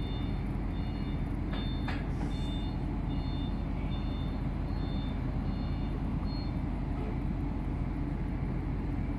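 Heavy diesel machinery running steadily with a low rumble, with a repeating high electronic warning beep, like a reversing or travel alarm, that stops about six and a half seconds in. A couple of sharp metallic clicks about two seconds in.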